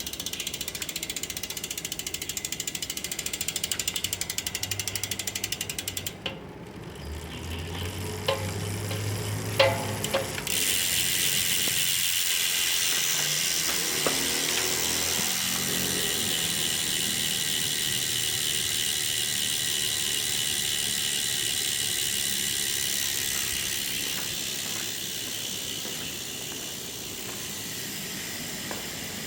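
Freehub of a ControlTech carbon wheelset's hub buzzing with rapid ratchet clicks as the wheel spins freely. The clicking stops about six seconds in and a few knocks follow. Around ten seconds in the buzz starts again and then slowly fades.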